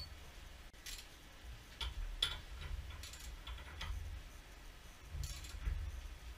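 Faint, irregular clicks and light taps, about seven spread across a few seconds, over a low rumble.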